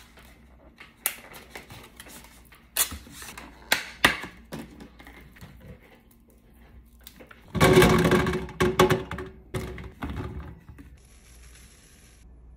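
Plastic clamshell container of cherry tomatoes snapping and crackling as it is opened, with several sharp clicks in the first few seconds. A little past halfway comes a loud stretch of rattling and tumbling as the tomatoes go into the silicone-lined air fryer basket, and near the end a short high hiss of salt sprinkled over them.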